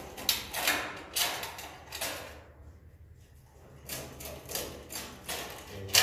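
Long-poled nest-harvesting tool scraping edible swiftlet nests off wooden ceiling planks. The rasping scrapes come in two spells with a quiet pause of about a second and a half between, and a sharp knock near the end.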